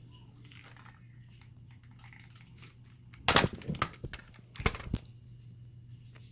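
Plastic toy gun being handled close to the microphone: two loud bursts of clattering and rubbing, one about three seconds in and one near five seconds, with a few small clicks between.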